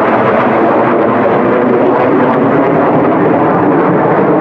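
Jet aircraft flying over in formation: a loud, steady jet-engine roar.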